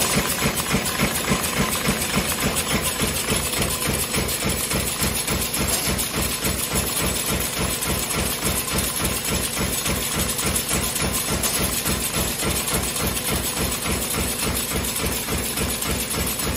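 High-speed sheet-fed power press stamping tinplate can ends, striking in a fast, even beat of several strokes a second over the steady mechanical running of the press line, conveyor and curling machine.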